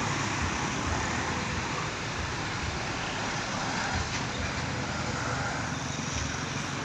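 Steady road traffic noise of vehicles running along a road, with no horn sounding.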